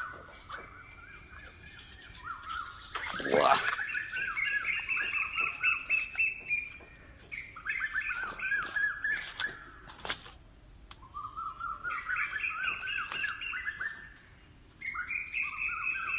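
A forest bird singing in repeated bouts of quick, rising chirps, each bout lasting a few seconds with short pauses between. A single louder falling sweep comes about three seconds in, and scattered light crunches and snaps of footsteps on dry leaf litter sound throughout.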